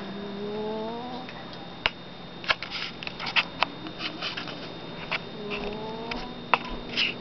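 An overweight house cat snoring in its sleep: two drawn-out snores, each rising in pitch, about five seconds apart, with scattered sharp clicks in between.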